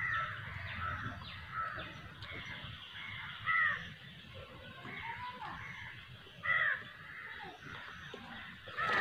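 Crows cawing repeatedly, with two louder caws about a third and two-thirds of the way through.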